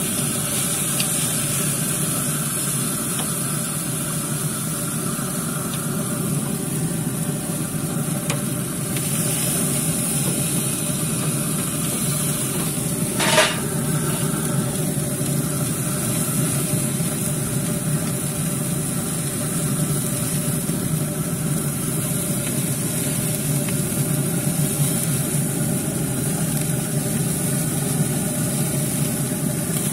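Steaks sizzling over open flames on a barrel grill: a steady hiss over a low rumble, with one sharp knock about 13 seconds in.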